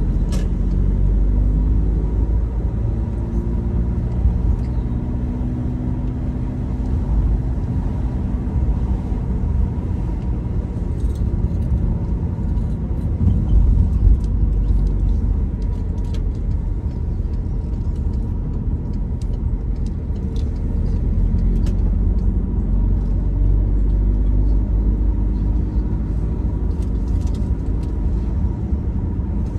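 Car engine and road rumble while driving. The engine note slowly rises and falls.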